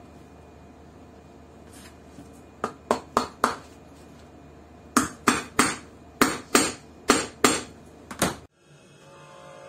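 Cobbler's hammer driving a new heel tip onto a high-heeled shoe's heel: a quick run of four sharp taps, then after a short pause about nine more. Near the end the taps stop abruptly and a steady low hum takes over.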